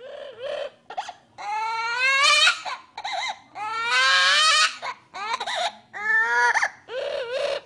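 A series of high-pitched wailing cries, about eight of them, the longer ones rising in pitch.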